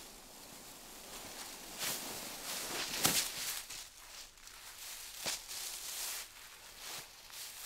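Footsteps crunching and rustling through dry fallen leaves on a forest floor: a handful of irregular steps, the loudest about three seconds in.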